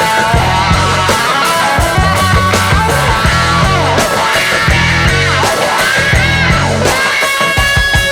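Background rock music: an electric guitar playing bending lead notes over bass and a steady drum beat.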